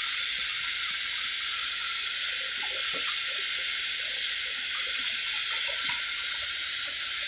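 Kitchen tap running steadily into a stainless steel sink while smoked neck bones are rinsed under it, with a few faint soft knocks from handling in the middle.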